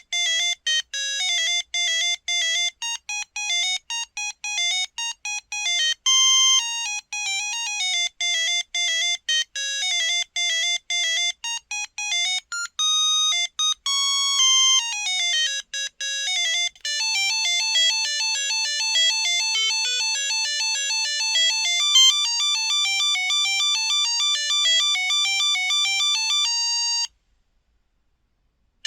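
Monophonic ringtone from a Samsung Anycall SCH-X140 mobile phone: a single-voice beeping melody, first in short separated notes, then from about halfway in a quicker run of connected notes, which cuts off near the end.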